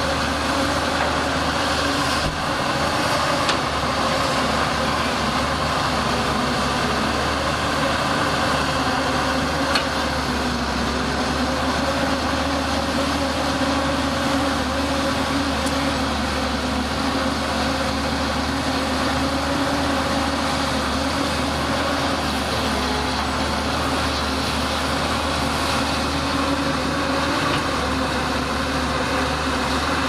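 Diesel engine of a JCB tracked hydraulic excavator running steadily under load as the arm digs and dumps soil. There is a light knock about three seconds in and another near ten seconds.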